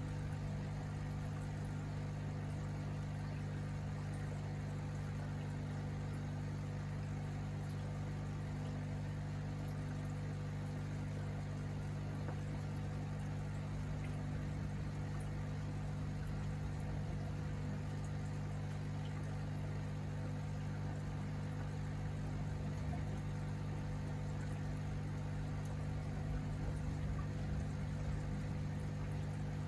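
Aquarium air pump humming steadily, with air bubbling in the tank water.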